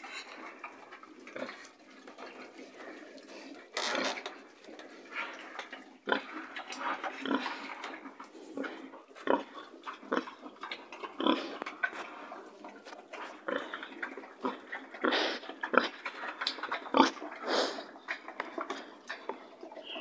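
Pigs grunting and snuffling up close in irregular bouts, with several louder grunts scattered through.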